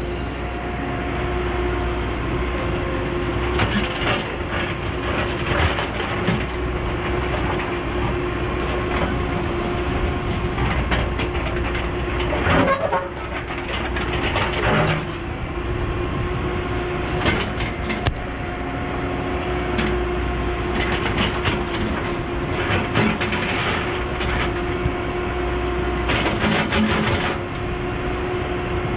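Cat 314E LCR excavator working, its diesel engine and hydraulics holding a steady drone with a whine. Scattered clanks and rattles come as the bucket digs and scrapes through rock and soil.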